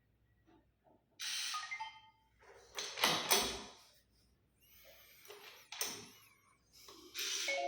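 Novalock NVM 95-G smart door lock going through an unlock: short electronic beeps, a loud mechanical clack about three seconds in, and more rattling with beeps near the end.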